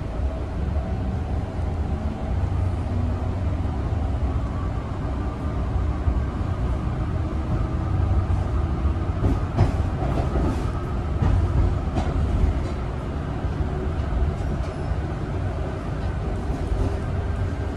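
Riding inside a Siemens SD660 light rail car in motion: a steady low rumble of wheels on track, with a faint whine that slowly rises in pitch. A few sharp clicks and knocks come about halfway through.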